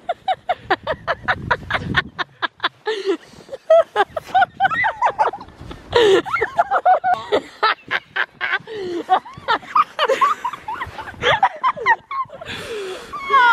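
Young women laughing hard: a quick run of short laughs at first, then high, wavering giggles and squeals.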